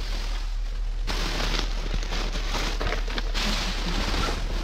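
Clear plastic bags crinkling and rustling as they are handled, a dense crackle that swells twice.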